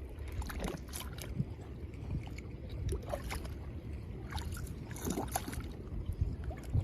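Shallow seawater sloshing and splashing, with scattered knocks, as a rock is turned over in the tide pool to look for crabs, over a steady low rumble.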